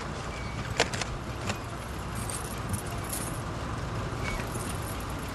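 Steady low rumble inside a car with its engine idling, with a few sharp clicks about a second in and light metallic jangling in the middle.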